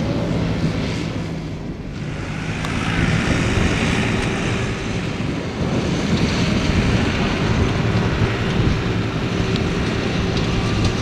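Strong wind buffeting the microphone, with the electric pusher motor and propeller of a ZOHD Orbit 900mm flying wing droning faintly overhead, its sound rising and falling as the wing passes.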